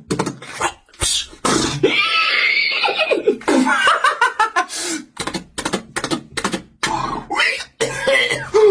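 A beatboxer making a sound effect with his mouth: a string of sharp clicks and pops, a stretch of hissing about two seconds in, and quick wavering voiced sounds in the middle.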